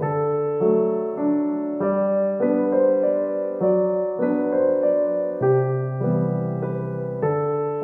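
Background solo piano music: a slow tune with a new note about every half second over changing low chords.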